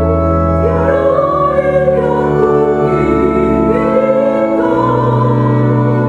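Mixed church choir of men and women singing an Indonesian hymn, accompanied by organ holding long low notes that change about half a second in and again past four seconds.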